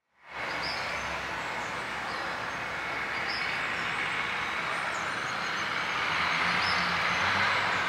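Steady rushing outdoor ambience with a few faint bird chirps.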